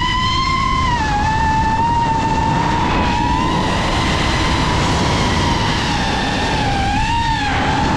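FPV racing quadcopter's brushless motors and propellers whining in flight. The high whine holds a fairly steady pitch, drops a little about a second in, and dips and rises again with throttle near the end.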